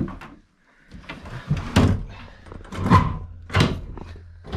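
Thuds and knocks against a pickup truck's load bed as a warthog carcass is pushed in; a few sharp knocks, about a second apart.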